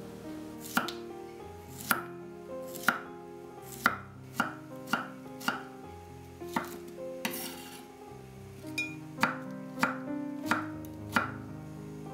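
Kitchen knife chopping zucchini on a wooden cutting board: a string of sharp knocks as the blade hits the board, roughly one a second, quickening in short runs.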